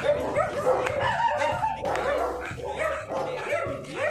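Dog barking and yipping, the calls coming close together almost without a break, with one rising yelp near the end.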